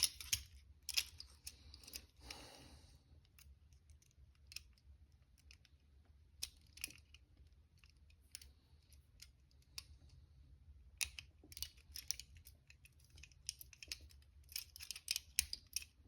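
Faint, scattered metallic clicks and scrapes of a lock pick working inside a handcuff's keyway, with small clinks from the cuffs. The clicks come in small clusters and grow busier toward the end.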